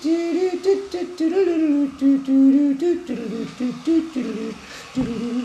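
A person humming a wandering, wordless tune of short and held notes.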